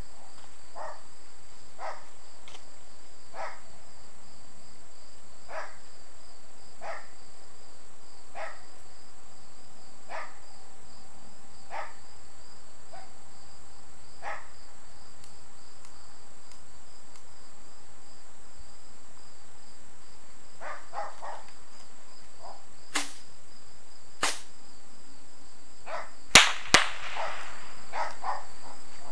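Insects chirping in a regular rhythm, about one chirp every second and a half, over a steady high insect drone. Near the end come a few sharp cracks, the loudest two close together and followed by a short hiss.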